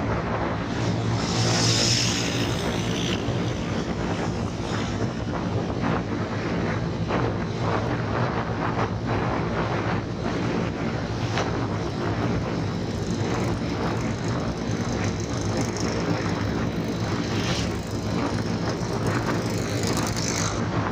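Motorcycle engine running steadily at cruising speed, with wind rushing over the microphone and a brief gust of hiss about two seconds in.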